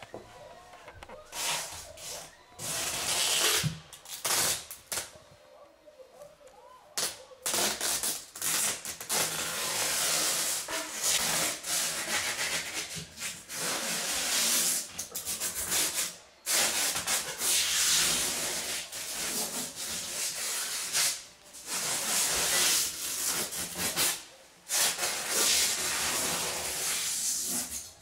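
Repeated rubbing and scraping noises in bursts of one to three seconds, separated by short breaks.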